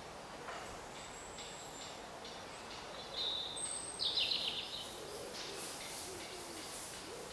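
Woodland ambience with wild birdsong: thin high whistles, then a loud burst of chirps and trills about three to four seconds in, and low wavering calls in the last few seconds.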